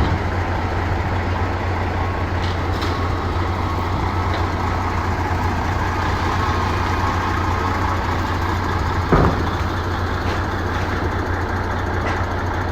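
Heavy machinery engine running steadily with a low hum, with one sharp knock about nine seconds in.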